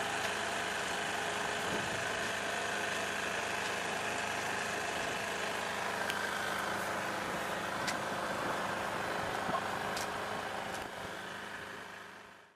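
Small outboard motor on a Neptun 22 sailing yacht running steadily under way, fading out near the end.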